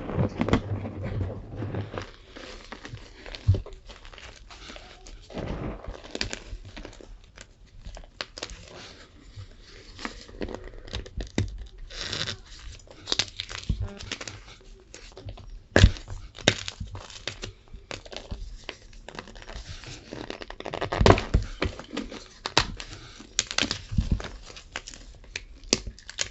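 Tie-dyed gym chalk being crushed and crumbled, giving irregular dry crunches and crackles of varying strength, with a few sharper snaps at intervals.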